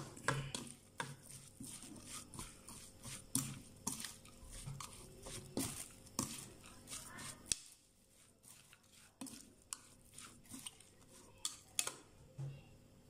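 A metal spoon tossing a raw shrimp salad in a ceramic bowl: irregular clinks and scrapes against the bowl as the shrimp and dressing are mixed, dropping off for a moment about halfway through.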